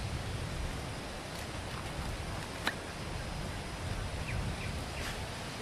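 Low wind rumble on the microphone outdoors, with a few faint short ticks and one sharper click a little before the middle.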